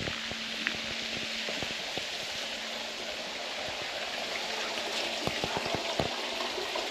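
Running water, a steady hiss, with scattered light knocks.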